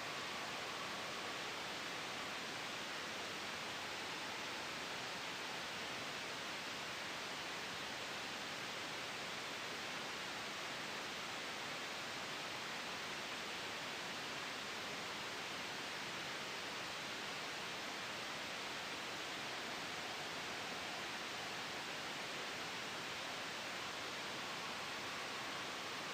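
Steady white noise for sleep masking, an even hiss that holds the same level throughout with no gusts or changes.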